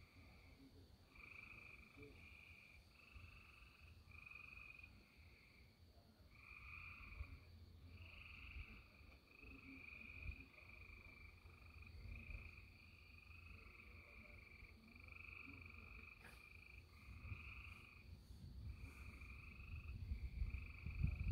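Faint chorus of animal calls: short calls repeating about once a second with little pause between them, over a low rumble.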